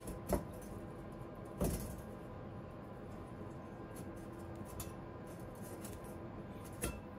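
A water-jet-cut metal button being pushed by hand out of its sheet, with two short clicks a little over a second apart as it breaks free of its tabs, then a faint steady hum.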